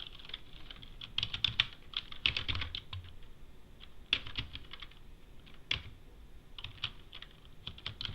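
Typing on a computer keyboard: uneven runs of key clicks with short pauses between, as terminal commands are typed in.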